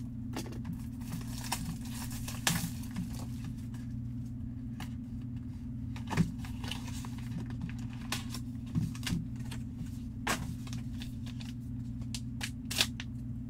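Plastic shrink wrap and packaging of a trading-card box crinkling and tearing in scattered short bursts as it is opened by hand, with a couple of sharper snaps about six seconds in and near the end. A steady low hum runs underneath.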